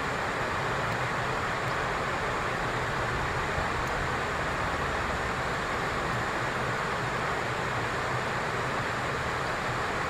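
A steady rushing noise with no distinct calls, knocks or other events.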